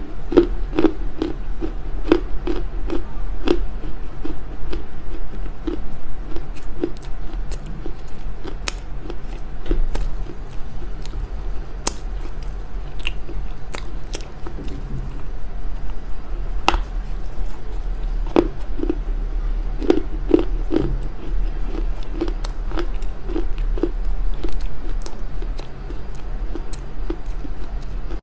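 Close-miked biting and chewing of a chunk of smoked Chinese loess clay: crisp crunches in quick runs of several a second as the dry clay breaks between the teeth.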